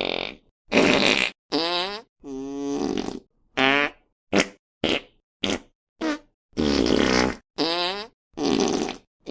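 Fart sound effects in quick succession: about a dozen separate farts with short gaps between them. Some are long and buzzy with sliding pitch, and a run of short, sharp ones comes in the middle.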